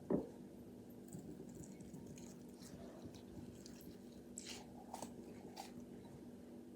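Faint, soft crackles and clicks of a foam squishy toy being handled and squeezed, a few sharper ones about two-thirds of the way through, over a steady low hum.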